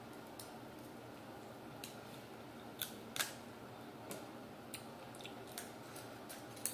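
King crab shell being cracked and broken apart by hand: a series of short, sharp cracks and snaps at irregular intervals, the loudest two about three seconds in.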